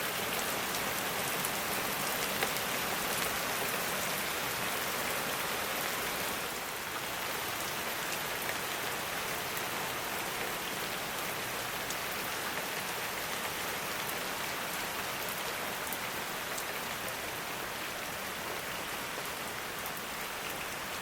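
Thunderstorm rain pouring steadily, an even dense hiss with scattered sharp ticks of drops striking; it eases slightly about six and a half seconds in.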